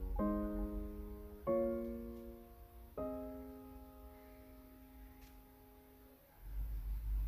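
Background piano music: three soft chords struck about a second and a half apart, the last one held and fading away. A low rumble comes in near the end.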